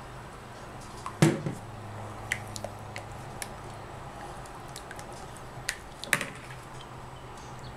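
Spatulas knocking against plastic mixing bowls and pitchers of soap batter: a few sharp clicks, the loudest about a second in and another just after six seconds, over a steady low hum.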